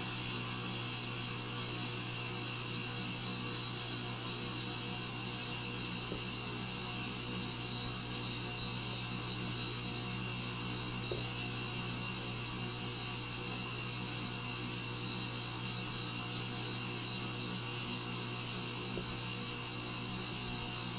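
A boosted recording of a steady noise played back through a laptop's add-on speaker: an unchanging low hum with several steady tones over a hiss. It is the noise said to come into the house from the neighbours' side.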